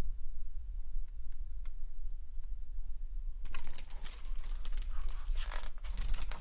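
Pages of a hardcover picture book being handled and turned: paper rustling and rubbing with quick ticks, starting about halfway through. Before that there is only a low hum and a few faint clicks.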